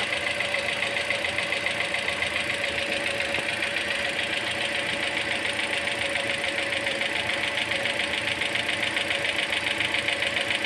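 Toyota Corolla Altis engine idling steadily with a fast, even ticking, while its cooling system is being bled of air.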